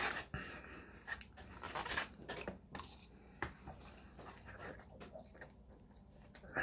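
Close-up eating sounds: chewing a mouthful of food, with a few sharp clicks of a plastic fork scraping and tapping in a styrofoam takeout container.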